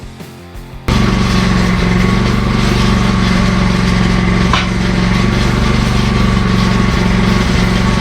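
A loud electric shop machine or power tool running steadily with a constant motor hum, cutting in suddenly about a second in.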